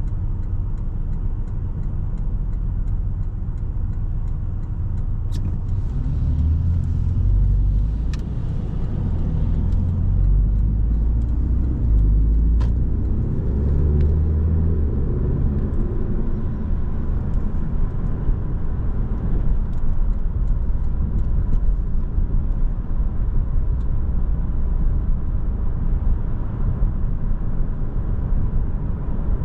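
Porsche 718 Boxster S's turbocharged flat-four engine and road noise while driving, a continuous low rumble. It grows heavier and uneven for about ten seconds in the first half as the engine works harder. A few short clicks are heard along the way.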